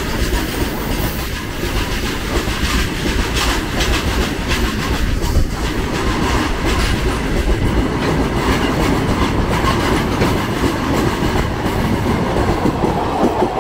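Loaded open-top freight wagons rolling past at speed, close by: a loud, continuous clatter of steel wheels over rail joints with the rumble of the heavy rake.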